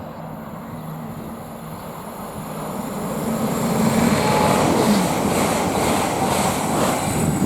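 Hull Trains Class 802 express train approaching and passing at speed. A rising rush of wheels on rail grows louder over the first few seconds, then holds steady as the train goes by.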